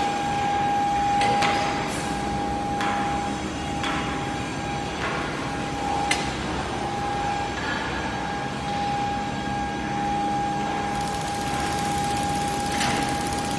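Intermediate-frequency induction furnace running while melting a charge: a steady, even whine over the general noise of the plant, with a few brief knocks and a louder hiss near the end.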